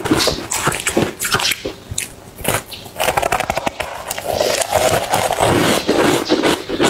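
Close-miked bites into frozen matcha ice chunks: dense crackling crunches and chewing, easing off for a moment about two seconds in before the crunching picks up again.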